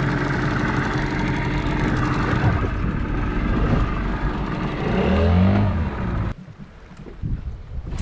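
Small outboard motor running steadily as the boat moves through the water. Its note changes briefly about five seconds in, and it cuts off abruptly about six seconds in, leaving wind.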